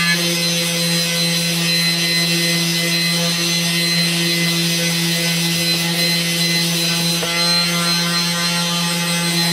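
Electric orbital sander running steadily as it wet-sands a repaired plastic car side skirt. There is a steady motor hum with a hiss of sandpaper rubbing the surface over it.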